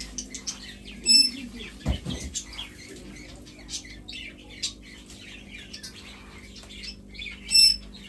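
A parakeet gives two short, shrill whistled calls, one about a second in and one near the end. Between them, small caged birds keep up a scatter of quick high chirps, and there is one dull thump about two seconds in.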